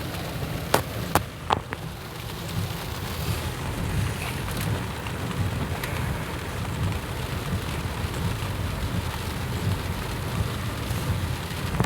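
Heavy rain falling steadily, with a constant low rumble underneath and a few sharp clicks about a second in.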